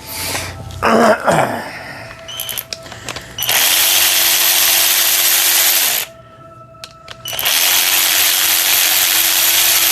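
Cordless impact wrench running in two bursts of a few seconds each, its motor spinning up and winding down each time, as it backs out the two caliper bracket bolts on a rear brake. A few clanks of tools being handled come before the first run.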